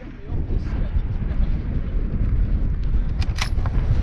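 Wind buffeting the microphone in a steady low rumble, with a few short, sharp clicks about three seconds in.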